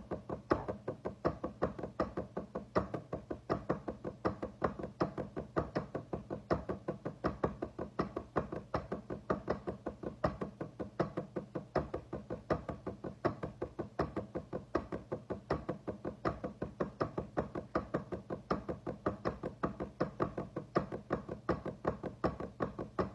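Drumsticks playing a polymetric exercise on a drum practice pad: a fast, even stream of sharp strokes, several a second, with louder accented hits woven through in a repeating pattern.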